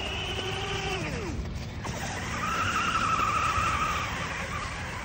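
Electric RC car motor and gears whining as the throttle is worked: the pitch rises, holds, then falls away about a second in, and a second, steadier whine comes from about two and a half to four seconds.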